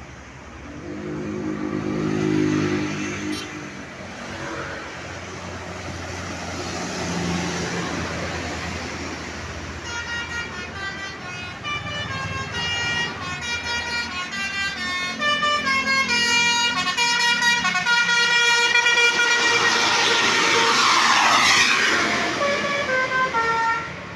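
Basuri telolet horn on a tour bus, multi-tone air horns playing a quick melody of changing notes, starting about ten seconds in and carrying on to the end. Before it, a low drone peaks about two seconds in, and a loud rushing noise swells over the horn around twenty seconds in.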